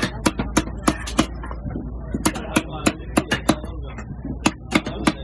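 A heavy knife chopping fish loin into chunks on a wooden log chopping block: quick, irregular chops, roughly three a second.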